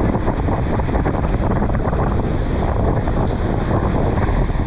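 Wind buffeting the microphone on the open upper deck of a tour boat, over a steady rush of water.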